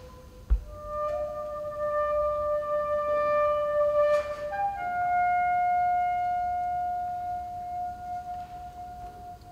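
Solo soprano saxophone playing a slow melody in long held notes: one note sustained for about four seconds, then a step up to a higher note held to the end. A single thump sounds about half a second in.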